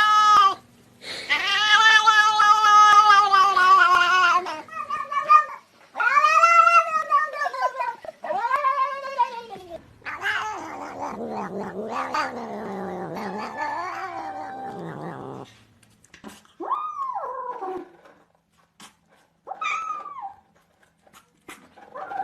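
Cats yowling and meowing. It opens with long, drawn-out yowls, then comes a series of shorter rising-and-falling meows. A lower, wavering yowl runs through the middle, and a few short falling meows come near the end.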